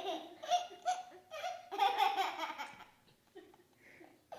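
A baby laughing in a run of short, pitched bursts. The laughter dies down to a few faint bursts about two and a half seconds in.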